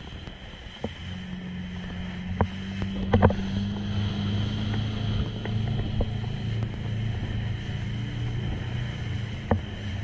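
Motorboat engine running under way, a steady drone that grows stronger about a second in. Several sharp knocks cut through it as the hull slaps the waves, the loudest about three seconds in.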